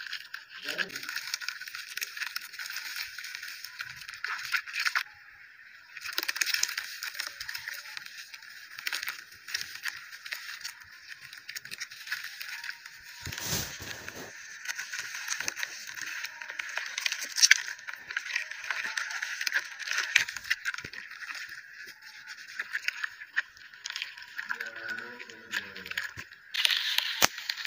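Dry red clay dirt soaking in water, fizzing and crackling steadily as air bubbles escape, while hands squeeze and crumble the block. The crackle breaks off for a moment about five seconds in, and there is one louder thump about halfway.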